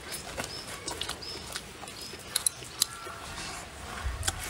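Close-up eating sounds: chewing with scattered sharp clicks of chopsticks and bowl, and a few short high squeaks.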